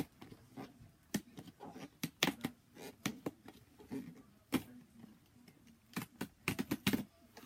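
Handling and opening an action figure's cardboard-and-plastic packaging: irregular clicks, snaps and crinkles, with sharper snaps about two, four and a half, and seven seconds in.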